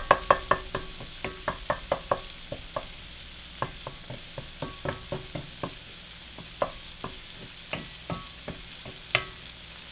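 Wooden spatula scraping and tapping against a cast iron skillet as scrambled eggs are stirred, with irregular taps that come most often in the first three seconds. Under it runs a steady sizzle of the eggs frying in hot fat.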